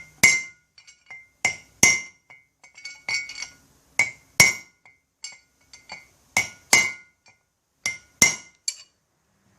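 Hammer striking steel parts of a wheel hub: irregular taps and harder blows, often in pairs, each with a short metallic ring.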